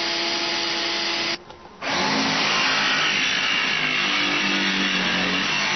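Cordless drill running steadily as it bores into MDF, stopping suddenly about a second and a half in. After a short gap a different, steady, noisy mechanical sound starts, with a low hum that wavers in pitch.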